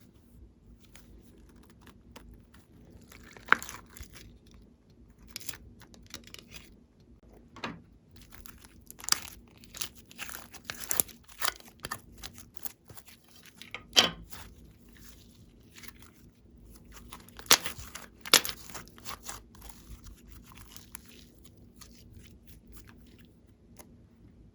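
Glossy slime being pressed and stretched by hand, giving irregular sticky clicks and crackles, with a few sharper pops.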